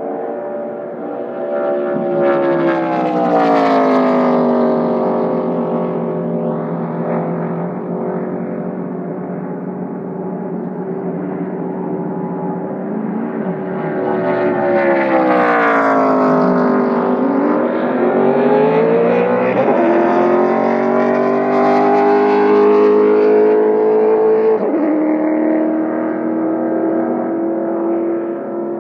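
ARCA stock car V8 engines running at speed. One passes with a falling pitch about three seconds in and another around sixteen seconds. Then an engine climbs in pitch, dropping suddenly twice, near twenty and twenty-five seconds.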